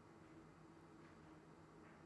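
Near silence: a faint steady low hum of room tone, with a couple of very faint soft ticks.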